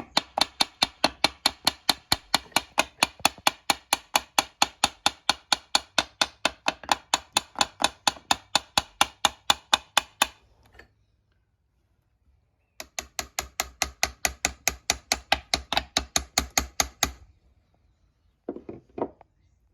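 Hand tool working on a KX85 engine's cases: a long, very even run of sharp clicks or taps, about four to five a second, that stops after about ten seconds, starts again for about four seconds, and ends with two short knocks near the end.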